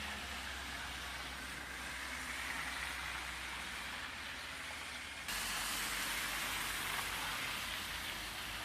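Outdoor ambience during a snowfall: a steady hiss with no distinct events. About five seconds in it abruptly becomes louder and brighter.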